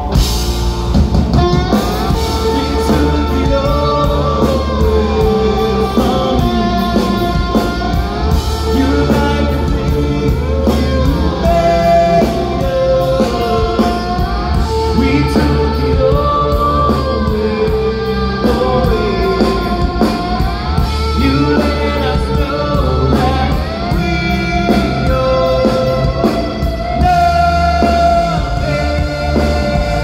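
Emo rock band playing live: a singer over guitars and a steady drum-kit beat.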